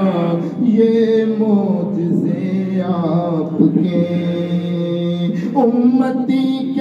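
A man's voice chanting an Urdu devotional salaam unaccompanied, singing long held notes that bend and glide in pitch.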